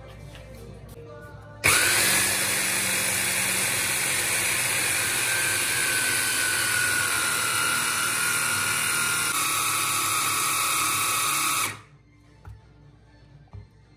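Braun 400-watt hand blender running on its chopper bowl, switched on about two seconds in and run steadily for about ten seconds while blending crushed Oreo biscuits with cream, then switched off. Its high whine drifts slightly lower in pitch partway through.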